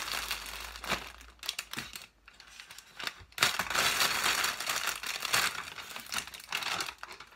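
Plastic bag packaging crinkling and rustling as it is handled. There is a short lull near the middle, and the crinkling is louder through the second half.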